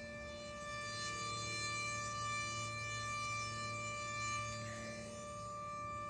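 Super Sirex outdoor warning siren sounding at full speed, holding one steady pitch with only slight swells in loudness. It has a broken rotator, so it does not sweep around.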